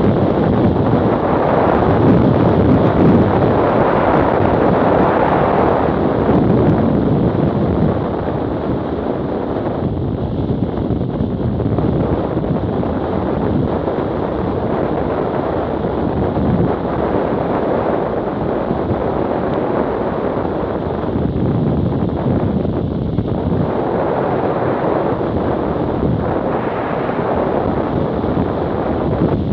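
Wind noise buffeting the microphone of a camera on a BMW F800GS motorcycle riding at road speed, with the bike's road noise beneath it. It is louder for the first seven or eight seconds, then steadier.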